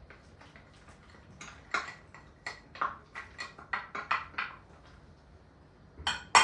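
Kitchen utensil clinking against dishes: a quick run of about a dozen ringing clinks, then two louder knocks near the end.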